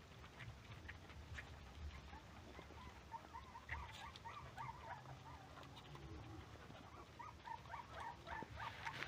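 Puppies feeding, with faint, short, high squeaks repeating several times a second.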